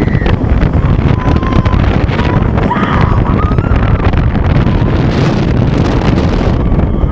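Wind buffeting the microphone, a loud steady rumble with no break.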